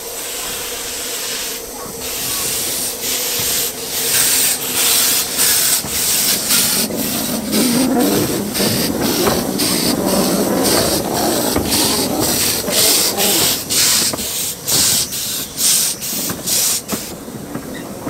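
Narrow-gauge steam locomotive exhaust chuffing at about two beats a second over a steady hiss of steam. The beats stop near the end, leaving the hiss.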